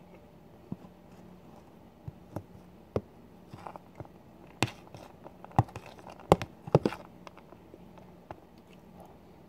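Close-up eating sounds of someone chewing a forkful of macaroni-and-rice goulash: irregular sharp clicks and smacks, few at first, thickest and loudest between about four and a half and seven seconds in.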